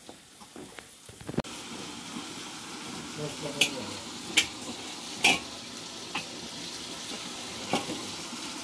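Food sizzling as it fries in a pan over a wood-fired clay stove (chulha): a steady frying hiss that starts abruptly about a second and a half in. About five short, sharp knocks of a utensil against the pan fall through it.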